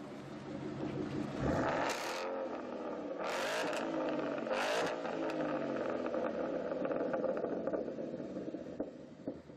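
Supercar engine revving. The pitch rises about a second and a half in, three short sharp revs follow over the next few seconds, and the engine then runs on before dropping away near the end.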